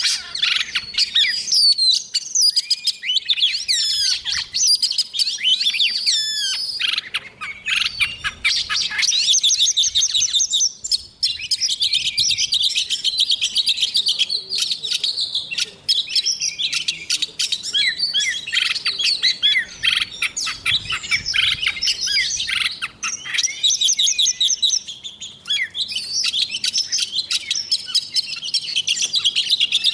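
White-rumped shama singing a long, loud song of rapid, varied whistles and fast trilled phrases, broken only by short pauses.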